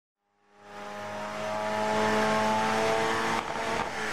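A car engine running hard at speed, fading in over the first second, with a brief dip about three and a half seconds in.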